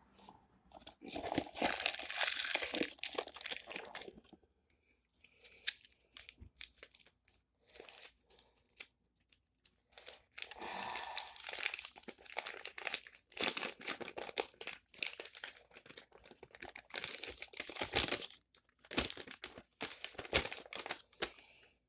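A folded paper instruction sheet being unwrapped and unfolded by hand, rustling and crinkling in irregular bursts with short pauses.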